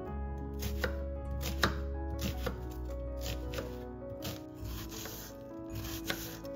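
Knife chopping on a cutting board, a series of separate, irregularly spaced strokes, over background music.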